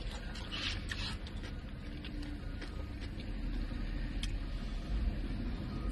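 Eating sounds: chewing and soft mouth noises, with a few light clicks of a spoon against a cup of chili. Under them runs a low steady rumble inside a parked car.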